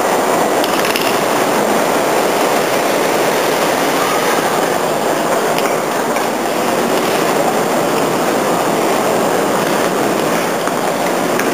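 Loud, steady din of a busy railway station concourse, with no clear rhythm or single sound standing out.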